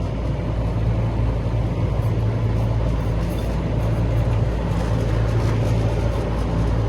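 A blower motor spun by hand and coasting freely, with no grinding or clicking: its bearings sound good. A steady low mechanical hum runs underneath and is the loudest sound, with a few faint light ticks about two to three seconds in.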